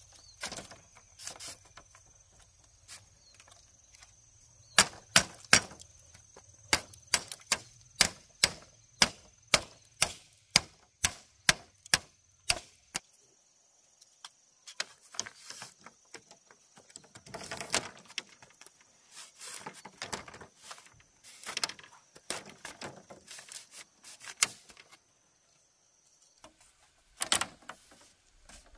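Split bamboo strips clacking and scraping against each other as they are woven over and under into a flat mat. A run of sharp wooden taps, two or three a second, comes in the first half, then softer rustling and scraping with a few more taps near the end.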